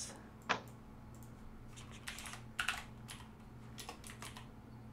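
Typing on a computer keyboard: irregular, scattered keystrokes and clicks, the sharpest about half a second in and a cluster between two and four seconds in, over a faint steady low hum.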